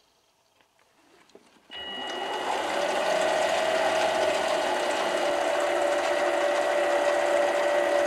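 Mini lathe switched on nearly two seconds in, its motor and spindle then running steadily with a high whine.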